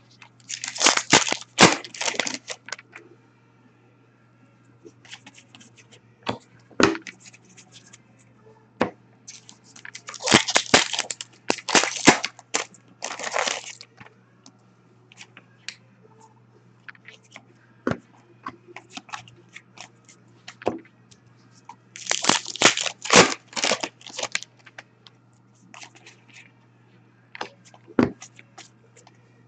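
Hockey card packs being torn open: three bouts of foil wrappers tearing and crinkling, with scattered clicks and taps of cards being handled between them, over a faint steady low hum.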